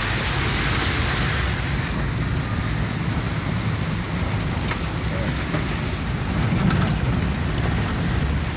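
Heavy rain beating on a car, over the low, steady rumble of the car's engine and tyres. The rush of rain is loudest in the first two seconds, then eases a little.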